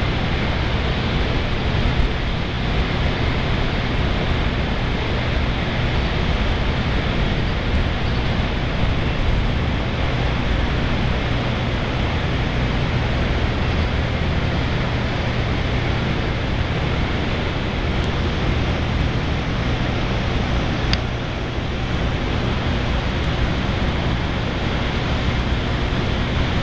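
Steady, even rushing noise of the city heard from high above the streets, with a low hum underneath.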